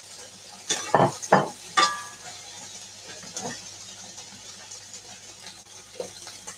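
Utensils knocking and clinking against pans and plates: four sharp knocks in the first two seconds, one ringing briefly, then a couple of fainter ones. Faint steady sizzling of food frying in the pans runs underneath.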